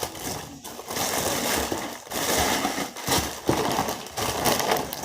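Rustling and knocking noise close to the microphone, with a few sharp knocks.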